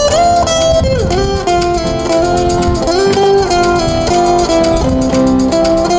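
Live acoustic band music: strummed and picked acoustic guitars under a melody of held notes that step up and down.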